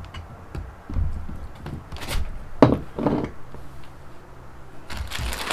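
Knocks and thuds of a Yamaha Raptor 250 engine and its parts being shifted about on a workbench, with a sharp knock about two and a half seconds in. A rustling noise starts near the end.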